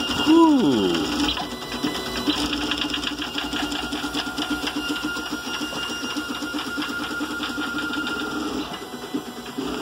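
GARCAD 3D printer running at 400 mm/s print speed and 16 m/s² acceleration: its stepper motors whir and buzz in a dense, rapid stream of short moves as the print head darts back and forth, with a steady hum underneath. The settings are untuned, and the builder says the print will need tweaking.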